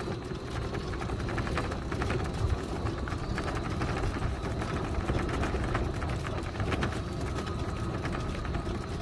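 A vehicle running and moving along, a steady low rumble with a fast, even rattle of small clicks over it.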